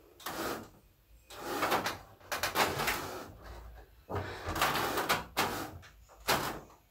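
Wooden bed frame being dragged and shoved across the floor in several short scraping pushes, about six in all.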